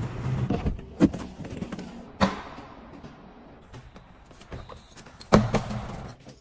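A Porsche's engine running as the car pulls into its space, fading out in the first half second, followed by a few clicks and knocks from the car's body. About five seconds in, the front trunk lid is shut with a loud thump.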